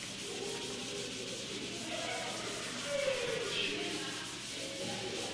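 A chalkboard eraser rubbing across a chalkboard in sweeping strokes: a steady scrubbing sound as the board is wiped clean.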